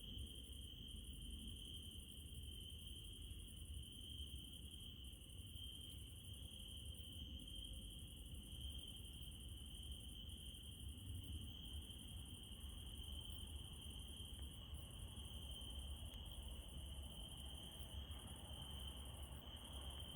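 Crickets trilling as one steady high-pitched drone, over a low rumble, with a few faint ticks.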